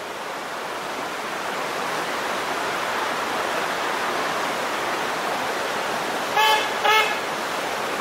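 Car horn tooted twice near the end, two short beeps about half a second apart: a driver's warning to oncoming traffic at a blind, narrow corner. Under it is a steady rushing noise that builds over the first few seconds.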